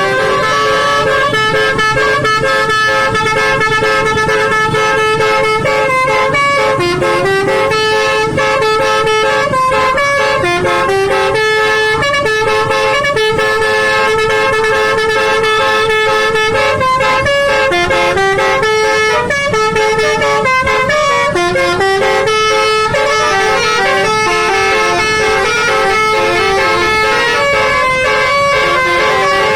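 Bus-mounted Basuri telolet air horn playing a continuous melody: several loud horn tones sound together and step up and down from note to note in a tune.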